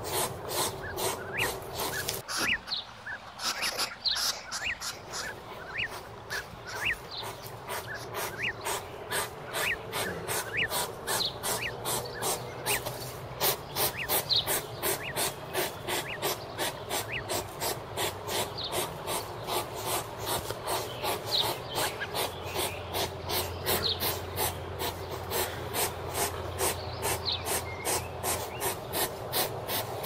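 Hedgehog snuffling as it forages: quick, even puffs of sniffing, about three or four a second, with high chirps in the background.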